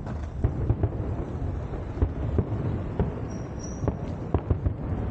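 Fireworks salute going off: a run of irregular sharp bangs and pops, several a second, over a steady low rumble.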